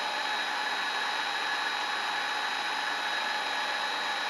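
Kent 2 HP Bridgeport-clone milling machine running steadily, its spindle motor on a variable frequency drive, giving a steady hum with a high whine.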